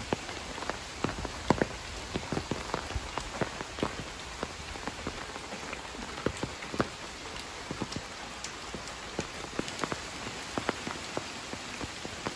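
Steady rain, with large drops tapping irregularly and close by on an umbrella held overhead.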